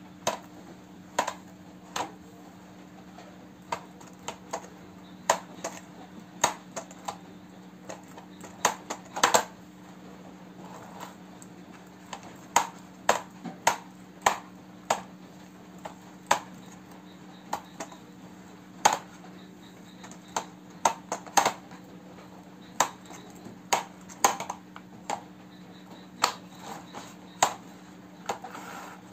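Sharp, irregular plastic clicks and taps, about one a second, from an orange plastic toy dump truck being handled, over a steady low hum.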